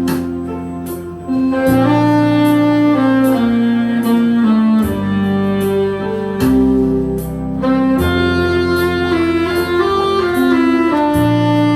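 Saxophone playing a slow melody in long held notes over a backing track with bass and drums.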